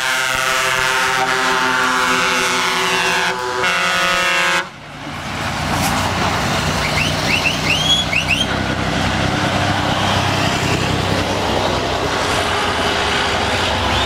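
Truck air horns sounding several notes together, the notes shifting a couple of times, then cutting off suddenly after about four and a half seconds. After that, the diesel engines of passing trucks run with a steady low rumble, and a few short rising chirps come about halfway through.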